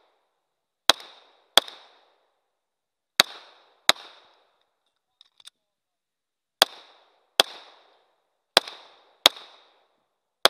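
A 9mm semi-automatic pistol firing double taps: four pairs of sharp shots, the two shots in each pair about three quarters of a second apart, then another shot at the very end.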